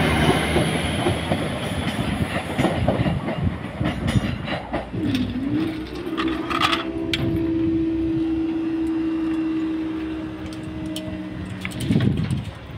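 A Translink NI Railways diesel multiple unit passes over the level crossing, its wheels clattering over the crossing. About five seconds in, a steady mechanical hum starts as the crossing barrier lifts, ending with a knock near the end as the boom reaches upright.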